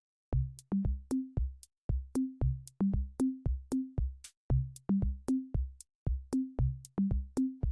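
Electronic background music with a steady drum-machine beat and short bass notes, starting about a third of a second in.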